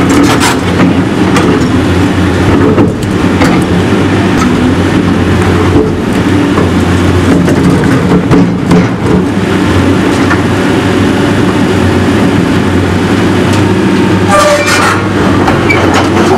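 Caterpillar 325D hydraulic excavator's diesel engine running steadily at working revs, with repeated clanks and crunches of concrete and metal debris as the bucket works through the demolition rubble.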